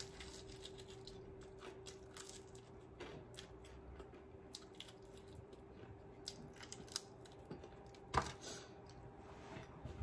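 Close-up eating sounds of KFC fried chicken: the crispy coating crunching and crackling between the teeth, with wet chewing and small mouth clicks, and one louder crunch about eight seconds in.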